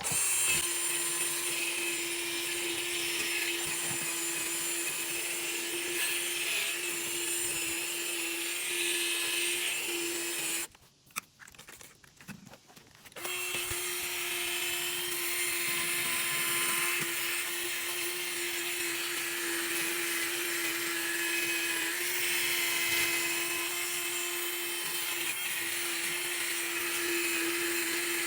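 Electric drill spinning a sanding disc against a misted plastic headlight lens: a steady motor whine with gritty scraping as the hazed, oxidised lens is wet-sanded. It stops about 11 seconds in and starts again about two seconds later.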